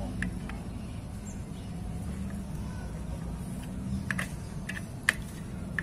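Light, sharp metallic clicks of a socket tool on the clutch spring bolts of a Honda EX5 Dream. There are a couple about a quarter second in and a cluster from about four seconds on, over a steady low background hum.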